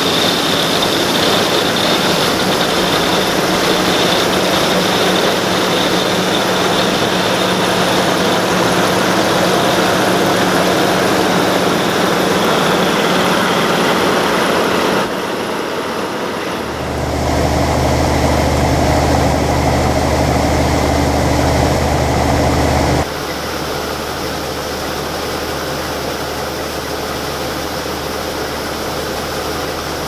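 Gleaner M2 combine running steadily while it harvests corn: engine and machinery noise with a faint steady whine. The sound changes abruptly about halfway through and again about two-thirds through, and a deep engine hum comes up strongly between those two changes.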